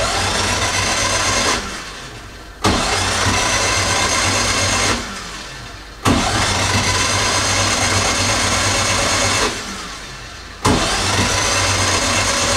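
An MGB's starter motor cranking the four-cylinder B-series engine with the spark plugs out, so it spins freely without firing. It runs in four bursts of about two to three seconds each, and each burst begins with a short rising whine as the starter spins up. The engine is being turned over to prime the oil pump and build oil pressure after an oil change.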